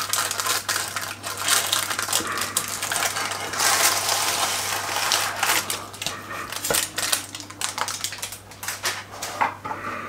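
Metal spatula scraping under a baked puff-pastry galette and baking paper crinkling as it is pulled away, with clicks and scrapes of a plate being moved on a glass hob and a sharp knock about two-thirds through.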